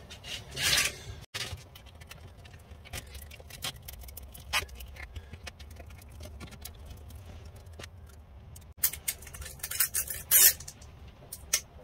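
Strip of abrasive sandpaper being handled on a workbench: crinkling, creasing and rubbing as it is folded and wrapped around a wooden sanding drum, with small clicks and a louder rasp near the start and again near the end.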